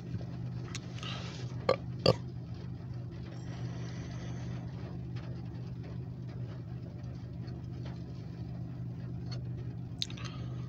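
Steady low hum inside a parked car's cabin, with rain tapping on the windshield. Two sharp knocks a little under two seconds in, and a smaller one near the end.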